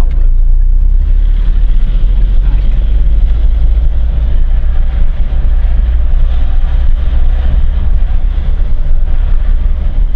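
Car driving slowly, heard from inside the cabin: a steady low rumble of road and engine noise.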